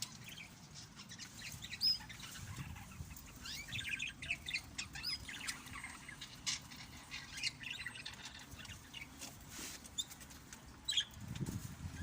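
Small caged birds chirping in short, high calls, with wings fluttering and scattered light taps.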